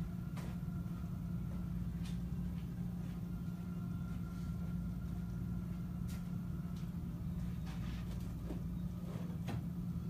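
Steady low electrical or mechanical hum with a faint high tone over it, and a few light taps scattered through.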